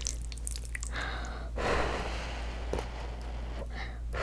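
A soft breath out, close to the microphones, swells and fades between about one and three seconds in. Faint clicks follow as chopsticks gather cream-sauced noodles.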